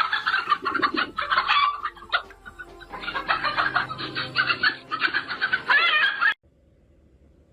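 Birds calling in a dense run of quick chirps and clucks, with a short lull partway through, cutting off suddenly a little after six seconds in.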